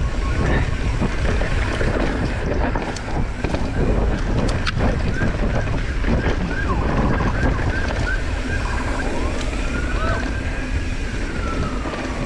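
Mountain bike descending a dirt singletrack: wind rushing over the microphone over the rumble of tyres on dirt, with the bike rattling and clicking over bumps.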